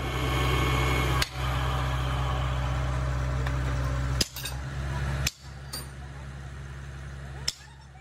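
Sledgehammer blows on a steel hydraulic jack assembly: about five sharp metal clanks spread a second or more apart, over a steady low hum.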